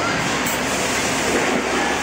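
Automatic steel rebar coupler threading machine running, a steady, even machine noise with no clear rhythm as blanks are fed and machined.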